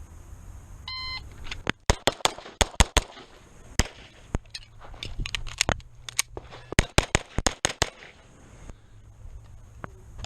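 A shot-timer beep about a second in, then rapid fire from a Beretta 92 Elite LTT 9mm pistol: many quick shots in fast pairs and strings, with short pauses between groups, over about six seconds.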